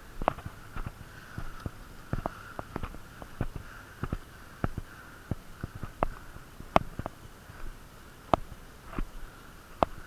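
Heavy breathing through a blocked nose, with irregular crunching footsteps and clicks as the player moves.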